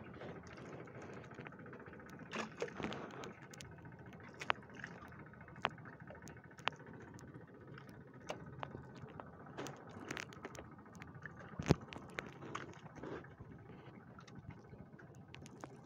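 Rain at sea: scattered drops ticking and tapping irregularly on a fishing boat over a steady low rumble, with one sharper knock a little before the end.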